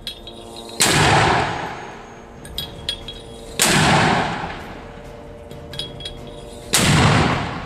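Mortar firing three times, about three seconds apart. Each round dropped down the tube goes off with a sudden boom that dies away over a second or so.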